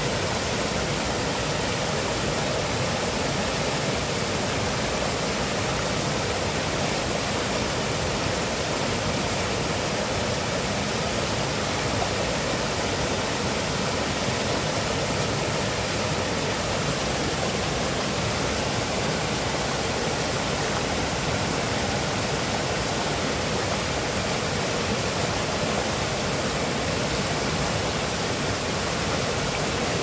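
Forest river rushing over rocks in small cascades: a steady, unbroken rush of water.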